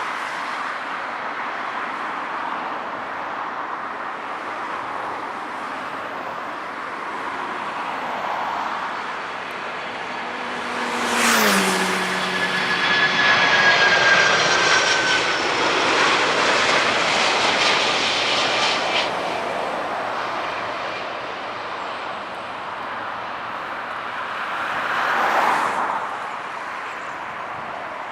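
Boeing 747-400 jet airliner on landing approach passing close overhead. Its engine noise builds, and about eleven seconds in the engine whine drops sharply in pitch as it goes by. It stays loud for several seconds, then fades to a steady rumble. A shorter swell of noise comes near the end.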